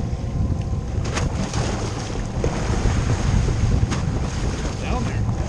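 Wind buffeting the microphone of a camera on an open fishing boat, over choppy water washing against the hull. A sharp click about a second in and another about four seconds in.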